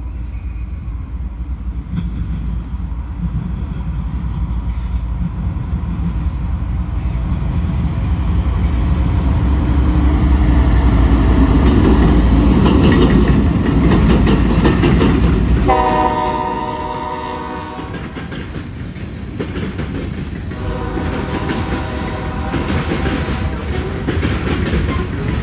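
Train passing with a heavy rumble and rail clatter that builds to its loudest about halfway through. A diesel locomotive's multi-note air horn sounds about sixteen seconds in, and again more faintly near the end.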